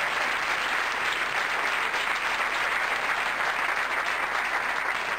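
Live audience applauding, a steady, dense patter of many hands clapping.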